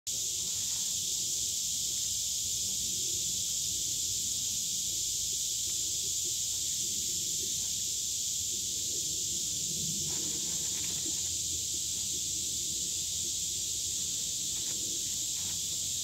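Steady, high-pitched insect chorus droning without a break.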